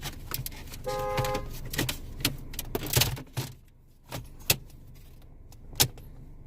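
Plastic dashboard trim clicking and rattling as a Dodge Dart's radio face panel is handled and fitted back into place, with a short electronic beep about a second in and two sharp snaps later on.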